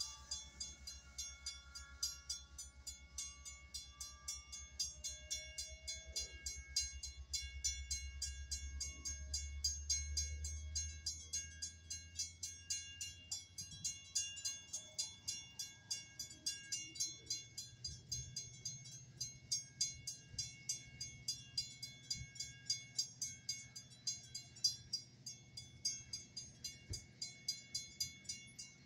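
Railroad grade-crossing bells ringing in a steady, rapid beat while a Metra bilevel commuter train rumbles past. The rumble fades about eleven seconds in, leaving the bells ringing on their own.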